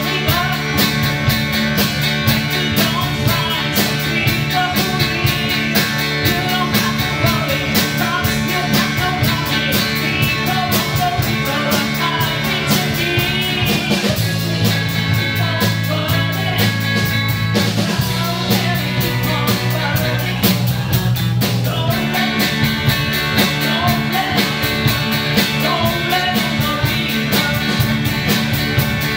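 Live blues-rock band playing: a woman singing lead over electric guitar, bass guitar, drums and keyboard, with a steady beat throughout.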